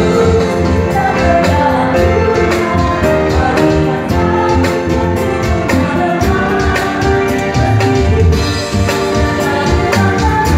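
Church band playing a hymn on keyboard, grand piano, violin and electronic drum kit, with a steady drum beat.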